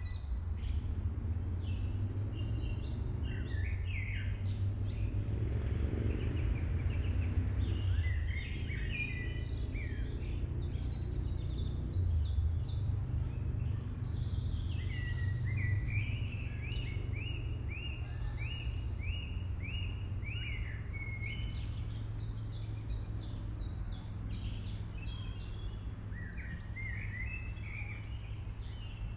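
Wild birds singing and calling, with a run of quick repeated rising notes in the middle, over a steady low rumble.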